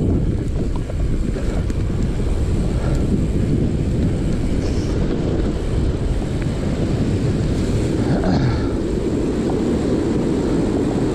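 Steady low rumble of wind buffeting the microphone of a camera on a mountain bike moving fast down dirt singletrack, with the bike's rolling noise mixed in.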